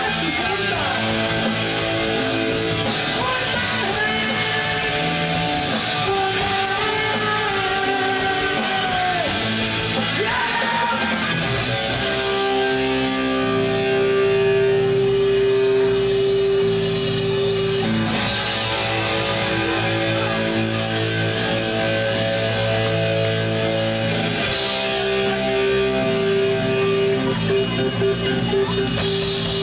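Live punk rock band playing loud: distorted electric guitar over bass and drums, with a singer's voice in places. The guitar holds long notes in stretches.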